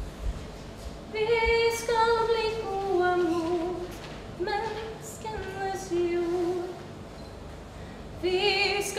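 A woman singing solo in long held notes, phrase by phrase, with a pause of about a second and a half near the end before the next phrase starts.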